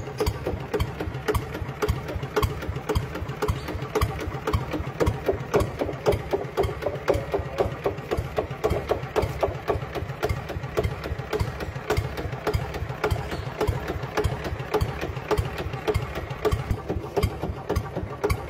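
Small walk-behind tractor engine running steadily with a rapid, even chugging beat while the tractor pulls a disc plow through dry soil.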